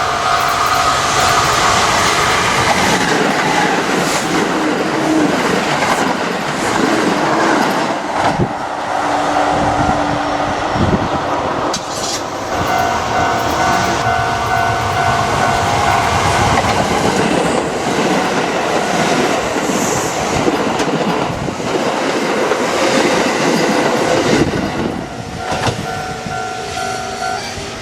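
Electric train passing over a railway level crossing, its wheels clattering over the rail joints with a few sharp knocks. The crossing's warning bell rings steadily, showing through the train noise at the start, midway and near the end.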